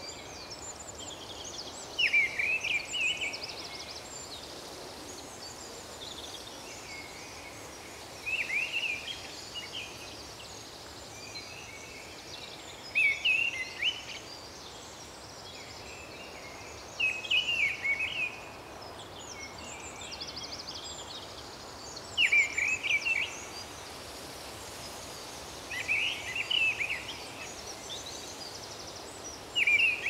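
Common blackbird singing close by, one short song phrase about every four to five seconds, seven times in all. Behind it are faint distant bird calls and a steady hiss of background noise.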